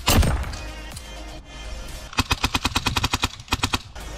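Airsoft gun firing a rapid string of shots, about ten a second for roughly a second and a half, starting about two seconds in. A loud sharp sound opens the stretch.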